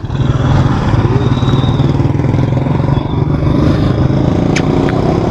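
Motorcycle engine running steadily under throttle as the bike rides along, a loud, even low drone that comes in suddenly at the start. A sharp click sounds near the end.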